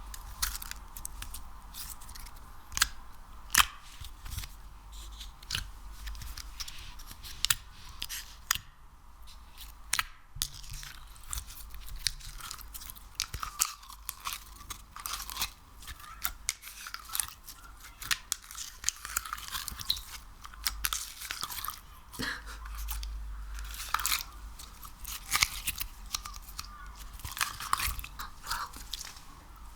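Sticky ASMR material, slime or wax, squeezed and pulled by hand close to the microphone. It gives a dense run of irregular sticky crackles, clicks and small pops.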